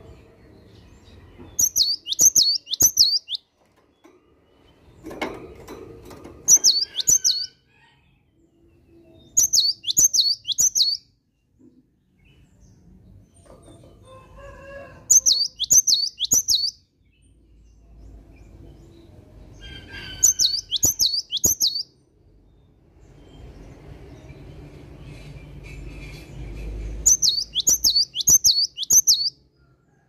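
Cinereous tit (gelatik batu) in full song: six short phrases of three or four sharp, falling whistled notes, a few seconds apart.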